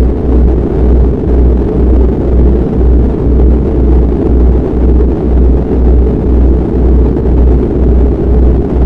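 Morphic-field audio track: a loud, steady low rumble of noise, with everything above the low range cut off, over a deep hum that pulses about twice a second.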